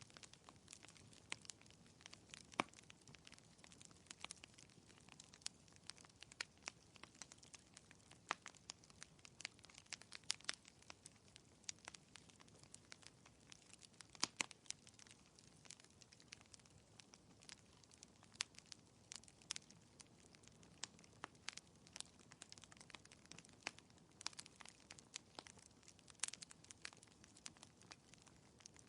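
Fireplace crackling, quiet: irregular sharp pops and snaps, several a second, over a faint hiss.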